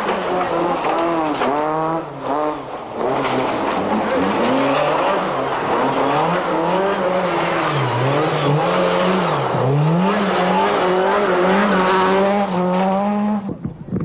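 Skoda Felicia Kit Car rally engine running hard, its note climbing and dropping with gear changes and lifts off the throttle. Twice near the middle the pitch dips sharply and climbs straight back, and the sound cuts off suddenly just before the end.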